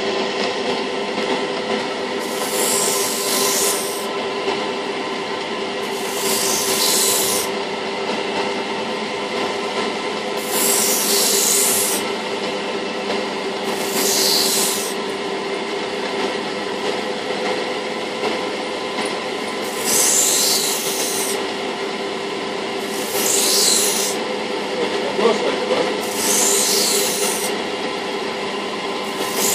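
A knife blade pressed against a spinning finishing wheel to sharpen it, a hissing grind in about eight strokes of a second or so each, every three to four seconds. Under it the grinding machinery runs with a steady hum.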